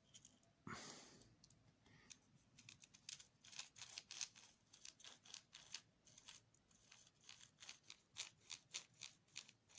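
Small plastic RC-car parts being handled as the differential is fitted back into the rear bulkhead: a soft knock about a second in, then a long run of quick, faint clicks and scrapes.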